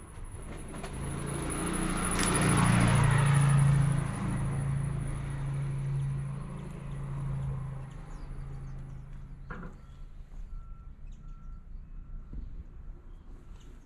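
A motor vehicle passes by, its engine hum and tyre noise swelling to a peak about three seconds in and fading away by about eight seconds. A sharp click follows, then a faint, broken beeping tone.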